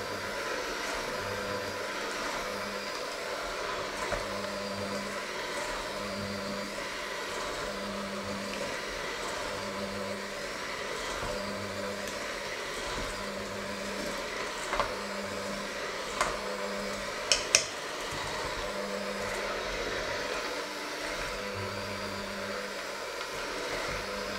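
Electric hand mixer running steadily, its beaters working a thick mashed mixture in a stainless steel bowl, with a few sharp knocks about two-thirds of the way through as the beaters strike the bowl.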